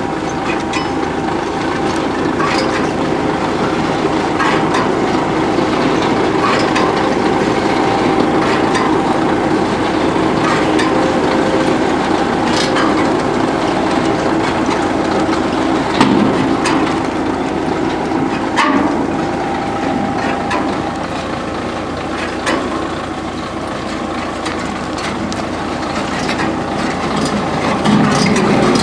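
A tractor engine runs steadily while the tractor-mounted garlic bulblet seeder works behind it. Irregular sharp clicks and rattles come from the seeder's chain drive and mechanism every second or two.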